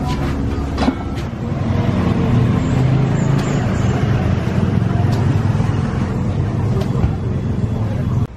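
A steady low rumble, with a few sharp metal clinks as long metal spatulas knock against a large steel wok while stirring curried potato filling.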